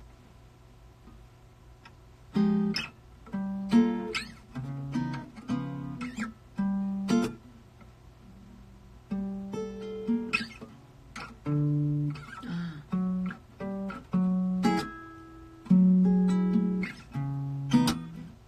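Acoustic guitar played solo, a series of picked notes and strummed chords, each ringing out and fading, starting about two seconds in after a quiet start. A low steady hum runs underneath.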